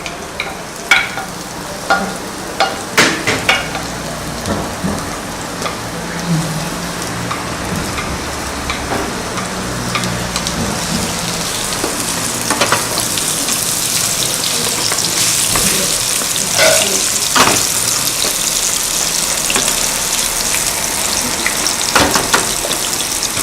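Chopped onion and pepper frying in olive oil in a saucepan: a steady sizzle that grows louder and brighter from about halfway through, with sharp knocks of a utensil stirring against the pan, most of them in the first few seconds.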